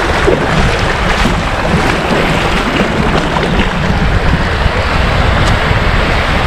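Sea waves washing onto the beach, with wind buffeting the microphone in a steady low rumble.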